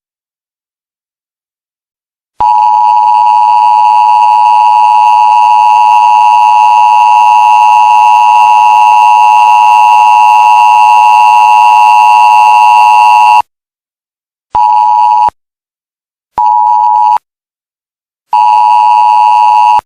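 The two-tone Emergency Alert System attention signal, a loud steady dual-tone beep held for about eleven seconds, followed by three short beeps of the same tone.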